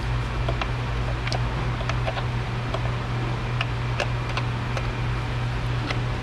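Scattered light clicks and ticks of hand tools and engine parts being handled under the hood, irregular, about a dozen over several seconds, over a steady low hum.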